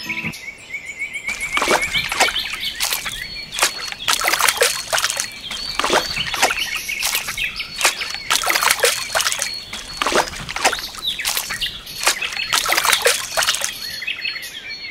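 Water trickling and splashing from a clear plastic tube into a small steel bowl, in irregular splashes all through, with birds chirping and a steady high tone in the background.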